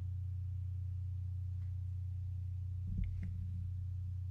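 Steady low electrical hum, with two faint clicks about three seconds in as the laptop's parts are handled.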